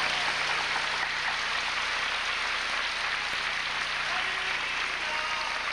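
Crowd applauding steadily, fading near the end.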